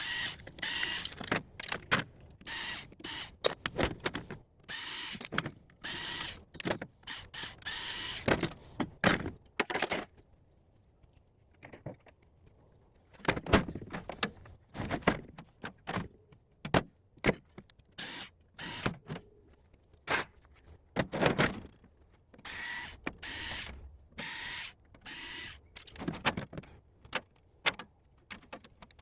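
Scrap metal pieces clanking and rattling as they are handled, sorted and dropped: irregular knocks and metallic clinks, with a lull from about ten to thirteen seconds in.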